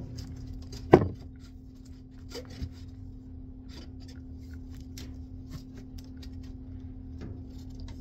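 A long plastic pipe being shifted and pressed against sheet-metal flashing and wooden joists overhead: a sharp knock about a second in, then scattered light scrapes and taps as it rubs along. A steady low hum runs underneath.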